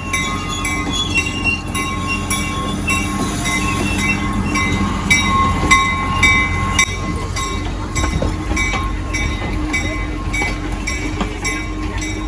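Railroad car rolling along the track with a steady low rumble. Its wheels squeal, and the clicks of the rail joints come at an even beat of a little under two a second.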